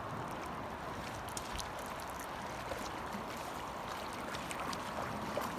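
Shallow river running over a gravel and cobble bed: a steady rushing of water, with a few faint clicks.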